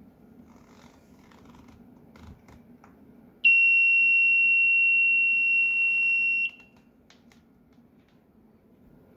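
Ludlum Model 316-3 gate frisker's alarm sounding: one steady, high-pitched beep about three seconds long that cuts off suddenly. A few faint clicks come before and after it.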